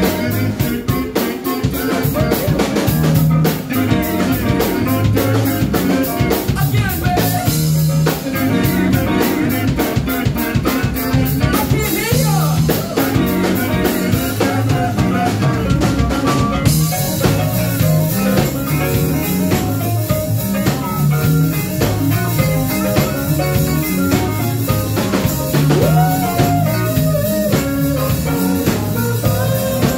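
Live rock band playing with a steady beat: drum kit, electric guitar and keyboard, with singing. A high cymbal-like wash in the middle cuts off suddenly about sixteen seconds in.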